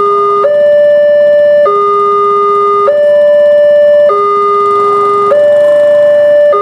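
Electronic railway level-crossing alarm sounding a two-tone warning, switching between a higher and a lower tone about every 1.2 seconds. It signals that a train is approaching the crossing.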